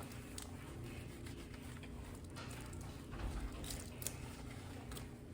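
Faint wet squishing of a wig being worked through with shampoo by hand, with a few light clicks and taps.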